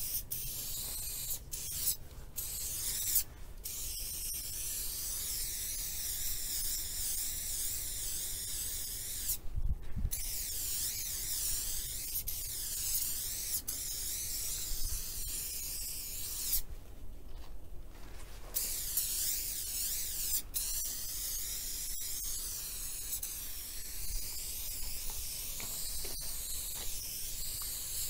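Aerosol spray-paint can hissing in long bursts, broken by short pauses, the longest a little over a second about seventeen seconds in.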